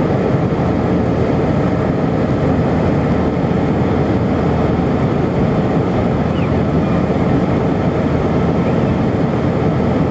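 Steady cabin roar of an Airbus airliner in cruise, heard from a window seat over the wing, with a faint steady hum running through it.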